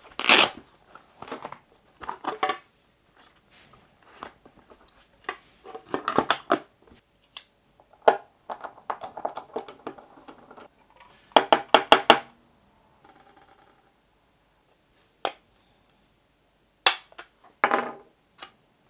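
Hand-tool and plastic-housing handling during a teardown: a series of sharp clicks, rattles and snaps as an iFixit driver kit is opened, a screwdriver works the single screw out of the bottom of a small plastic network unit, and the plastic case is pried apart. The clicks are densest about eleven to twelve seconds in, with a few more near the end.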